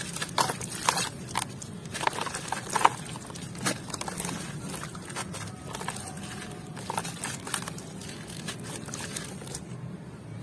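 Gritty sand-clay chunks being squeezed and crumbled by hand in water: a run of sharp crunches and crackles, frequent in the first few seconds, then sparser and softer.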